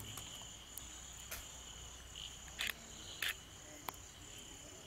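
Insects trilling steadily, a faint high-pitched drone, with a few short sharp clicks scattered through the middle.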